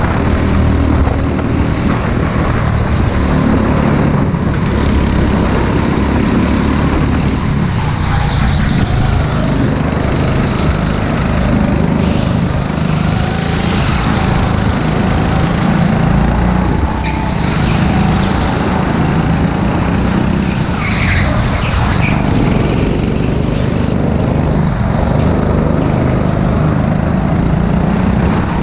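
Go-kart engine running continuously at speed, heard from the driver's seat as a loud, steady drone.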